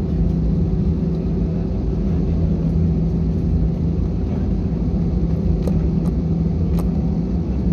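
Cabin noise inside a jet airliner rolling along the runway: a steady low rumble of engines and wheels with a constant hum, and a few faint clicks.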